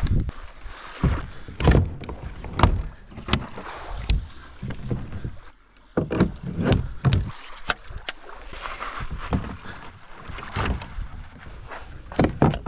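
Irregular knocks and thuds of a plastic pedal kayak, a Hobie Outback, and its gear being handled, some heavy and some sharp, with a wash of background noise between them.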